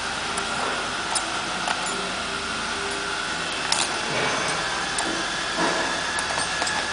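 Steady mechanical running noise with a faint steady whine, over which come a few light clicks and knocks, the sharpest a little before the middle.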